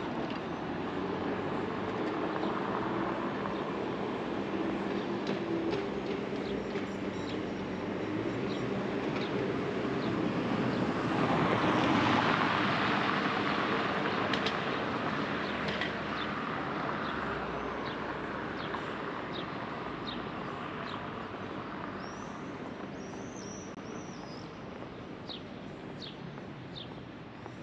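City traffic: a vehicle's engine runs and passes, loudest about twelve seconds in, with birds chirping over it, more often near the end.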